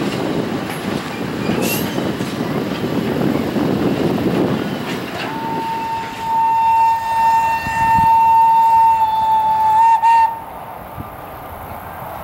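A passenger train rolling past with a low rumble, then a single long blast of the train's whistle: one steady high note held about five seconds before it cuts off abruptly.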